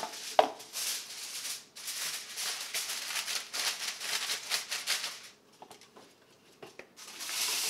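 Aluminium foil being pulled from the roll, torn off and crinkled as it is pressed over a pan, a crisp crackling rustle. It stops about five seconds in, then starts again near the end.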